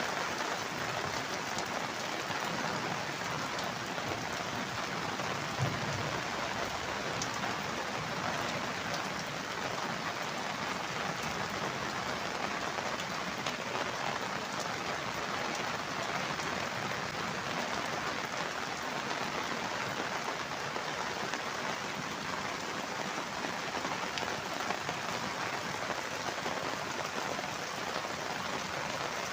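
Steady heavy rain falling and splashing on a flooded street, with water pouring off rooftops.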